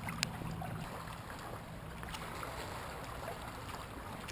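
Water lapping gently at a rocky shoreline as steady outdoor noise, with a couple of faint clicks near the start.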